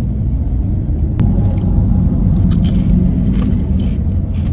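Steady low road and engine rumble inside a moving car's cabin, with a sharp click about a second in and a few light ticks and rattles in the second half.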